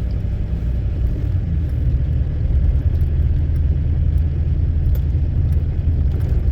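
Pickup truck's Duramax diesel engine and road noise heard from inside the cab while driving: a steady low rumble.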